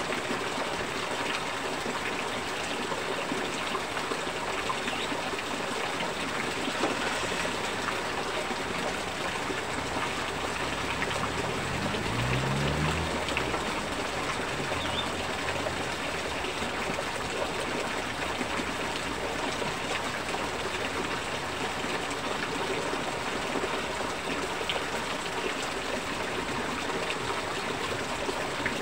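Rain with rainwater pouring off a roof edge in streams and splashing onto a person and the wet pavement: a steady rush of falling water.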